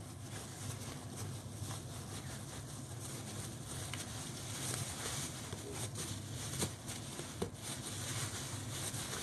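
Quiet hand-rolling of a sushi roll: soft rustling and handling with a few light taps in the second half, over a steady low room hum.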